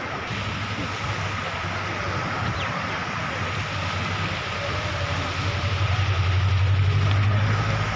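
Street traffic, with a heavy vehicle's low rumble swelling about five seconds in and dropping away near the end.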